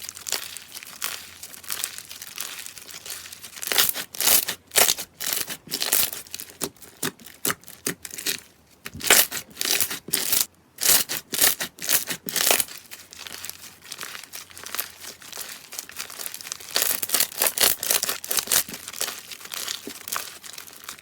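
Slime being squeezed and worked by hand: dense runs of sticky crackles and small pops, in bunches with short pauses.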